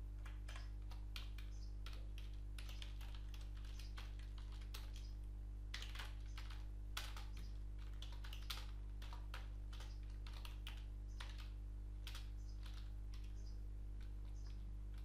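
Typing on a computer keyboard: irregular, quick key clicks as a line of code is typed, over a steady low electrical hum.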